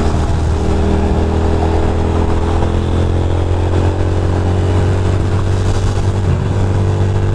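Ducati Monster 620's air-cooled L-twin engine running steadily at cruising speed, with rushing wind and road noise.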